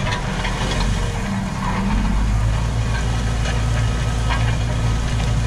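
Tractor engine running under load while pulling a disc harrow across stubble, heard from inside the cab. The engine note shifts about two seconds in, with scattered clicks and rattles over it.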